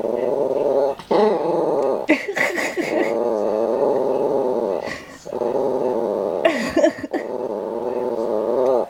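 Old Yorkshire terrier making long, wavering growl-like moans, one drawn-out vocalisation after another with short breaks and a few huffing breaths between, almost human-sounding.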